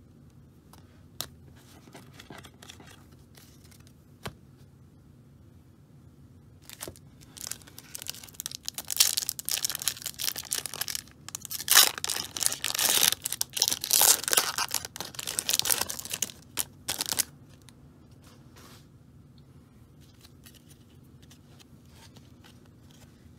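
A 1994 Fleer Ultra football card pack's foil wrapper being torn open and crinkled by hand. The rough crackling tearing starts about a third of the way in and lasts about ten seconds, with a couple of faint clicks before it.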